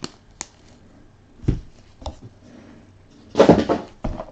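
Trading cards and their packaging being handled on a table: a couple of light clicks, soft knocks, then a louder brushing scrape lasting about half a second about three and a half seconds in.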